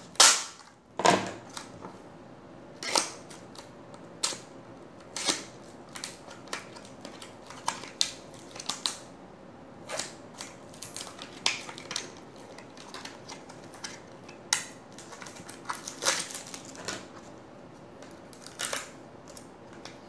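A clear plastic blister pack being pried open and handled: irregular sharp crackles and snaps of stiff plastic, loudest just after the start.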